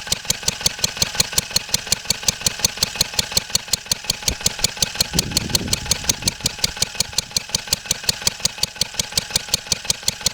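1954 Wolseley WD8 stationary engine running steadily off load, its firing strokes as even sharp beats about seven a second, with no misfiring now that the timing is reset. A light tapping runs with it, which the owner puts down to a back plate left undone after the timing job. A brief lower rumble comes about five seconds in.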